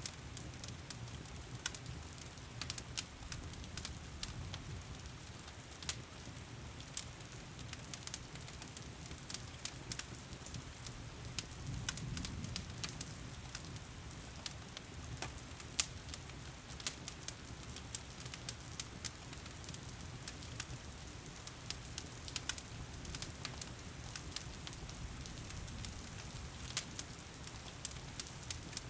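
Wood fire crackling in a fireplace, with frequent irregular pops and snaps over a soft low rumble of the flames. Steady rain hisses underneath.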